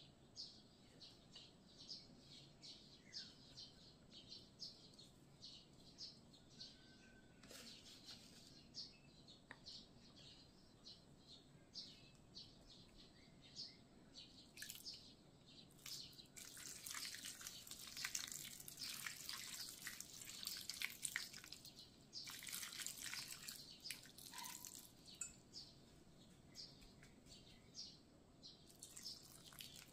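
Water poured from a cup into a metal pan of boiled bracken, splashing and pattering for several seconds about halfway through. Faint bird chirps repeat in the background throughout.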